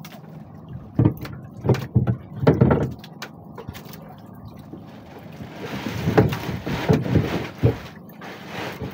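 Water sloshing and splashing against the hull of a small outrigger boat, with wind buffeting the microphone in irregular gusts. A longer rush of noise comes in the second half.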